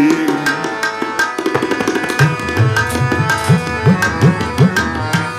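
Instrumental passage of Sikh kirtan: a harmonium holds steady chords while the tabla plays. From about two seconds in, the bass drum gives a quick run of strokes that each bend upward in pitch, about three a second. A held sung note fades out just at the start.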